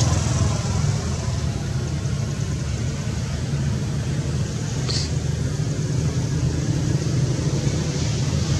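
Steady low engine hum, like a motor idling nearby, with one brief high squeak about five seconds in.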